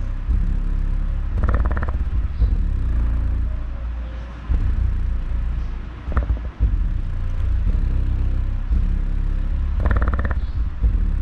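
JBL A1300HI subwoofer playing bass-heavy music in a sound test, with deep bass dominating. A phrase repeats about every eight to nine seconds.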